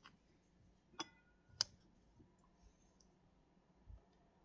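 Two light clicks of a plastic ladle against a ceramic bowl, about half a second apart and a second or so in, then a faint knock near the end; otherwise near silence.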